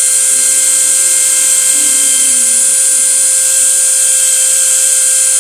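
CNC router spindle running at high speed with a loud, steady, high-pitched whine, while fainter tones glide up and down in pitch as the axis motors speed up and slow down during a test cut.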